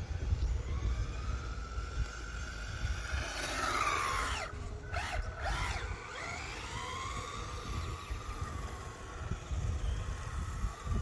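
Small RC drift car's electric motor whining, climbing in pitch as it speeds up, then swooping sharply down and back up about halfway through before settling to a steadier whine. A low rumble of wind on the microphone runs underneath.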